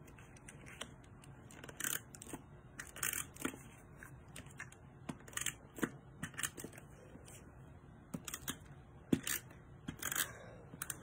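Handheld tape runner laying double-sided adhesive onto cardstock: a string of short, irregular crackling clicks as the tape is pulled and pressed off.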